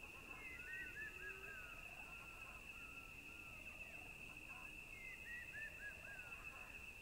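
Faint outdoor wildlife ambience: a steady, high insect trill, with a short run of bird chirps about half a second in and another around five seconds in.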